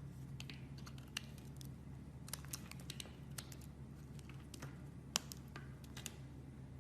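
Slime being worked by hand, giving off irregular small clicks and pops. A steady low hum runs underneath.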